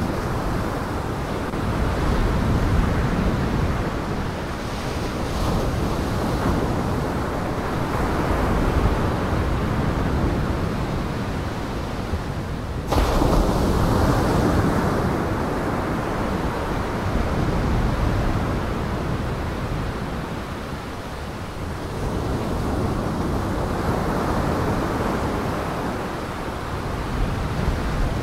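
Storm surf in gale winds: waves breaking and washing on the shore, with gusting wind, swelling and ebbing every few seconds. The sound changes abruptly about halfway through.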